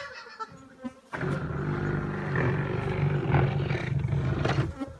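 A swarm of agitated Africanized honey bees buzzing: a steady low hum that starts about a second in and stops just before the end. The bees are stirred up from an aggressive hive in the wall.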